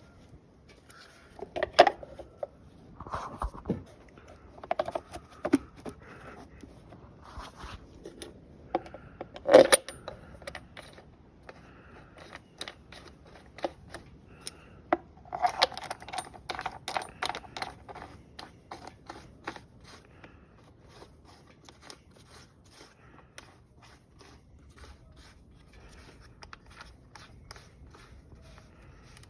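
Hand tools and metal parts clinking, scraping and knocking as parts go back onto a riding mower, with two louder knocks early on and a run of quick clicks a little past halfway.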